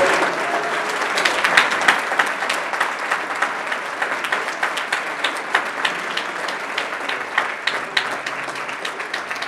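Audience applauding: dense clapping that thins a little toward the end.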